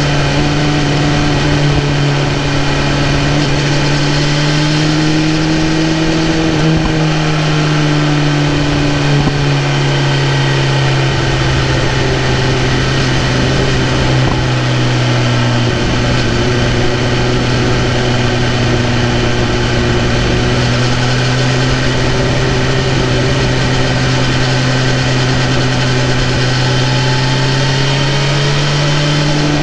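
BMW S1000RR's inline-four engine running at a steady cruising pitch under way. The pitch sags slightly around the middle and climbs again near the end.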